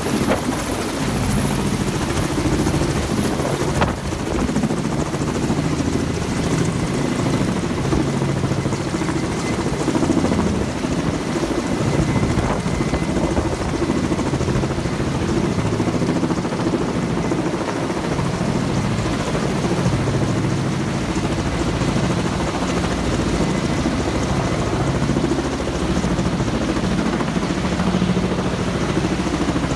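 Kamov coaxial-rotor helicopter hovering, its rotors and engines running steadily with a pulsing low drone while it holds a shipping container on a long sling line beneath it.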